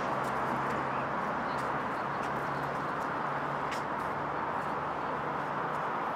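Steady outdoor city ambience: a continuous hum of road traffic, with faint low engine tones and light scattered ticks of footsteps on paving stones.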